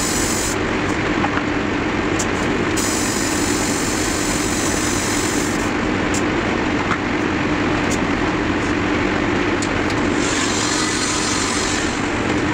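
Airbrush compressor running steadily: a constant motor hum under an even hiss.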